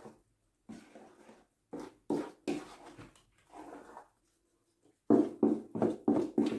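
Wooden spoon beating thick cornmeal cake batter in a metal mixing bowl. The strokes are irregular, with two short pauses, then settle about five seconds in into a quick, even beat of about three strokes a second.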